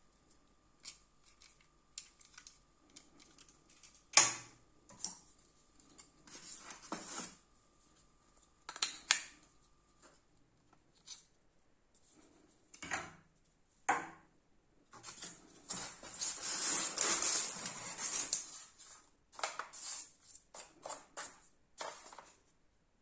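Airsoft shotgun and its packaging being handled: scattered sharp clicks and knocks, the loudest about four seconds in, and a rustle lasting about three seconds past the middle.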